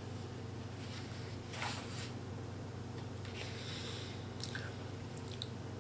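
Comic book pages being handled and turned: a soft paper rustle about one and a half seconds in and a few faint ticks later, over a steady low room hum.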